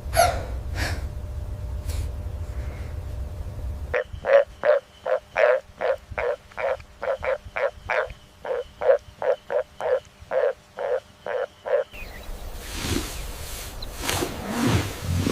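An animal calling: a fast, even run of about twenty short calls, roughly two and a half a second, lasting about eight seconds. Low rumbling noise comes before and after, with clean cuts where the clips change.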